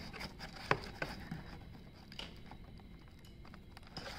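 Stiff pasted paper of a dented papier-mâché lion head horn crackling and crinkling as fingers press and push it out, in irregular sharp little cracks, the sharpest about three-quarters of a second in.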